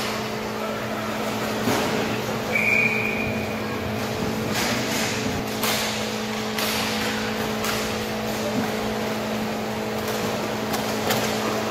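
Roller hockey play in a rink: sharp clacks of sticks and puck against the floor and boards come at irregular moments over a steady hum. A short high tone sounds about three seconds in.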